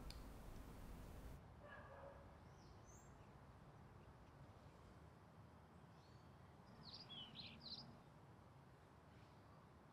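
Near silence: room tone, with a few faint, short high-pitched chirps, mostly in a cluster about seven seconds in.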